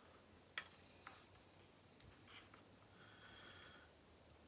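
Near silence: faint room tone with two small clicks about half a second apart early on.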